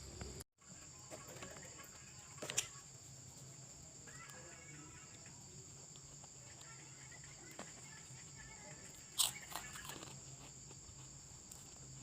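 Steady, high-pitched chorus of chirping insects such as crickets, with two sharp clicks about two and a half seconds in and about nine seconds in, the second louder. The sound drops out completely for a moment about half a second in.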